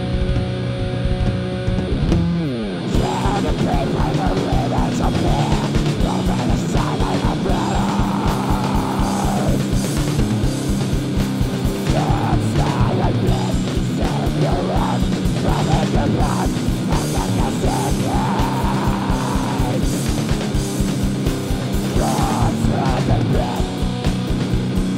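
Heavy rock band music with distorted electric guitars: a held chord slides down in pitch about two seconds in, then the full band comes in with fast, even drumming under the guitar riffs.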